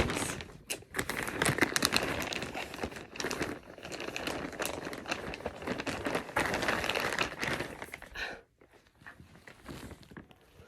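Plastic packaging crinkling and rustling as clothing is handled and unpacked, busy and irregular, then dropping to faint, occasional rustles about eight seconds in.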